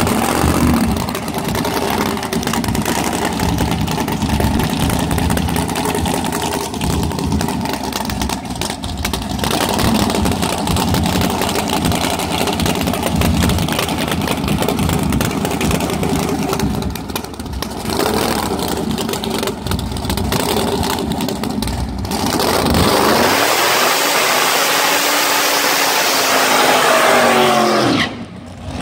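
Chevrolet Nova drag car's engine running loud and uneven, revs rising and falling, then about 22 seconds in a burnout: a hiss of spinning rear tyres over the engine note climbing and falling, dropping away suddenly near the end.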